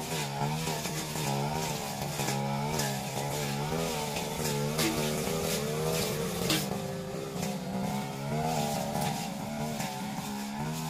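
Backpack brush cutter's small engine running under load, its pitch rising and falling over and over as the cutting head swings through grass and weeds, with a couple of sharp ticks about halfway through.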